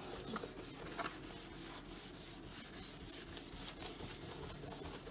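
Gray abrasive pad scrubbed back and forth over a clear-coated wooden harp soundboard in quick repeated scratchy strokes, dulling the gloss finish toward a matte look.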